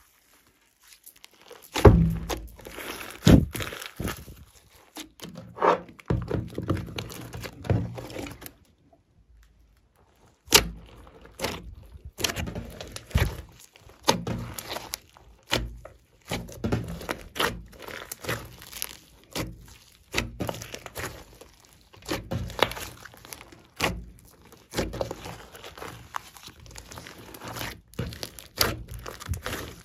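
Hands squishing and kneading a large glossy slime mixed with clay and foam beads: irregular sticky pops, clicks and crackles as air pockets burst, with a silent gap of about two seconds about a third of the way in.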